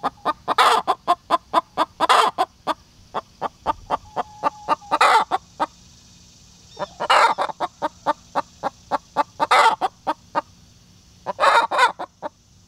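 Hen cackling in agitation: a quick run of sharp clucks, about four a second, broken about every two seconds by a loud drawn-out squawk. The keeper takes the upset to be over her nesting box, which two other hens have taken.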